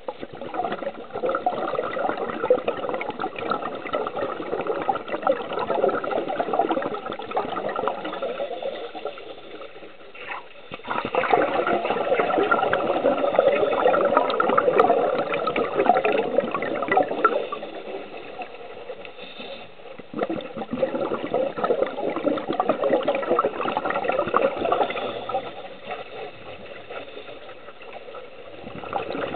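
Scuba regulator exhaust bubbles heard underwater, in three long bubbling stretches of several seconds with quieter gaps between, as a diver breathes out.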